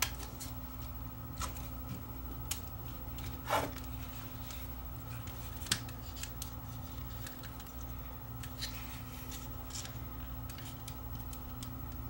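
Scattered light clicks and taps of small tools and plastic parts as a camcorder's casing is taken apart, over a steady low hum. One louder click comes a little after three seconds in.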